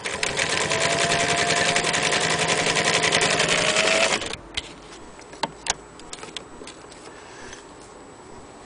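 Singer 306K electric sewing machine running at speed, the needle stitching with a rapid, even clatter over a steady motor whine that rises slightly just before it stops about four seconds in. A few light clicks follow.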